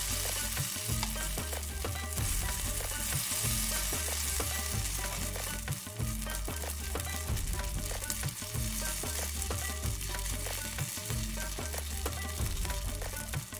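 Corn batter of ground green maize sizzling steadily as it fries in hot oil in a karai (wok), while a metal spoon spreads it out in the pan.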